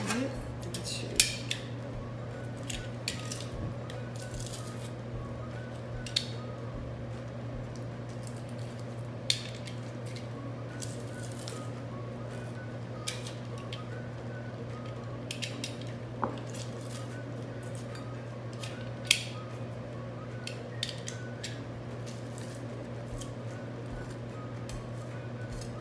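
Metal garlic press and a small steel bowl clicking and knocking now and then as garlic cloves are squeezed through the press, a handful of sharp clicks over a steady low hum.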